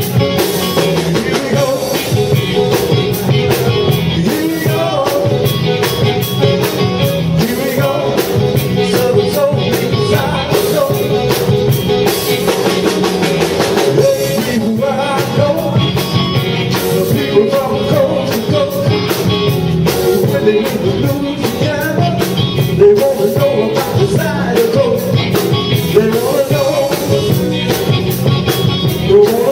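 Live band playing a song with a singer: guitar and keyboards over a steady drum beat.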